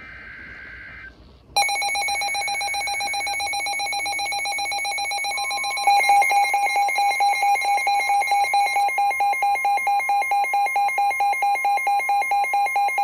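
Midland weather radios sounding a NOAA Weather Radio warning alert. The tail of the SAME digital header's data squawk ends about a second in. Then the radios' alarm starts: a rapid pulsing electronic beep, joined about five seconds in by the steady 1050 Hz warning alarm tone from the broadcast, with the pulsing beeps getting louder about a second later.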